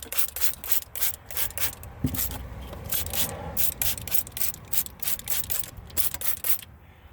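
Hand trigger spray bottle squeezed again and again, a short hiss with each squeeze at about three a second, spraying rubber conditioner onto a front suspension boot. The spraying stops near the end.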